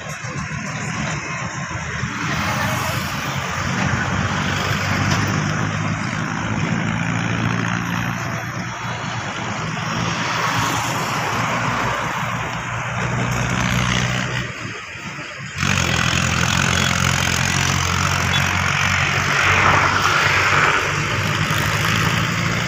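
Engine of a moving road vehicle running steadily, heard from on board, with wind and road noise. About fifteen seconds in the sound drops away briefly, then comes back suddenly, louder.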